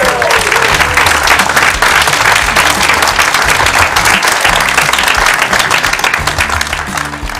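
A small crowd of dinner guests applauding steadily, with background music under the clapping; the applause tapers off near the end.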